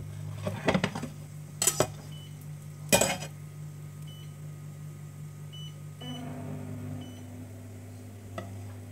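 A frying pan on a glass-top induction hob, knocked against the glass three times, the last and loudest about three seconds in, over a steady low electric hum, with faint short high beeps at irregular moments.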